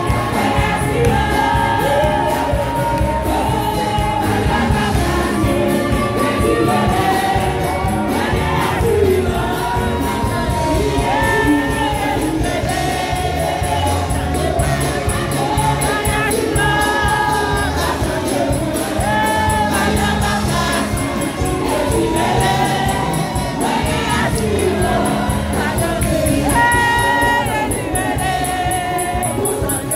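A church congregation singing a gospel worship song together, many voices over steady musical accompaniment.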